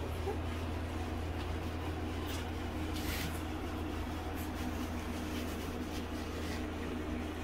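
Two-week-old Labrador puppies nursing, with faint soft sucking clicks now and then over a steady low hum.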